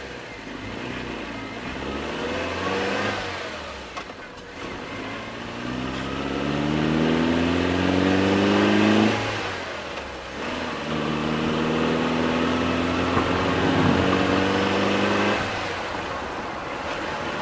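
Motorcycle engine accelerating, its pitch climbing steadily for several seconds, dropping back, then climbing again in a second long pull.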